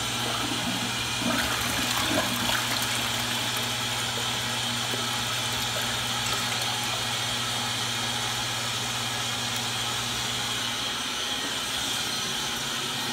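2004 Crane Plumbing Galaxy toilet flushing and refilling. Water swirls and runs into the bowl with a steady rushing hiss, and there are a few gurgles in the first couple of seconds.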